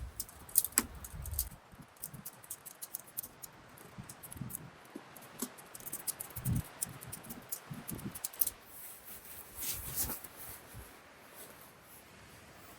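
Scattered small clicks, taps and light knocks of objects being handled, with a brief rustle about two thirds of the way through.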